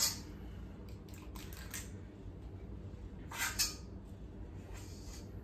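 Metal cookie scoop scraping dough out of a stainless steel pot, with its spring-loaded release clicking as each ball is dropped. There are a handful of short scrapes and clicks; the loudest are a close pair about three and a half seconds in.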